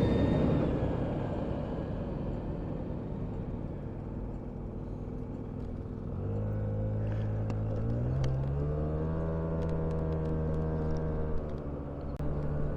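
Car engine and tyre noise heard from inside the cabin while driving. About six seconds in a steady engine note comes up, rises in pitch as the car accelerates, and then holds steady.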